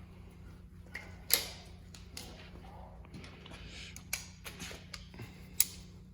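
Scattered metallic clicks and clinks of hand tools and parts during the teardown of a GM 6.0 LQ4 V8, the sharpest about a second in and near the end, over a steady low hum.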